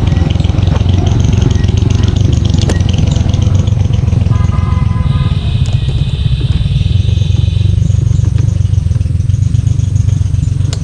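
Motorcycle engine running steadily at a constant speed, a loud, even drone, with brief higher-pitched tones in the middle.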